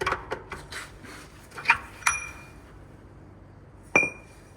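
A few light knocks, then two sharp metallic clanks, about two seconds in and near the end, each ringing briefly: steel parts or tools striking each other.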